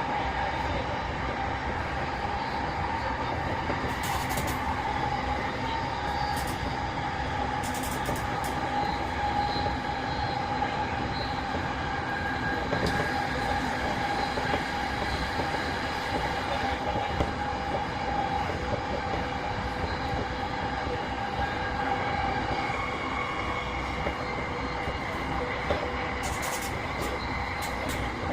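E233 series 3000 subseries electric multiple unit running at a steady speed, heard from inside the car: a continuous rumble of wheels on rail under steady motor tones that hold their pitch. A few brief sharp high ticks come through, a handful near the start and a cluster near the end.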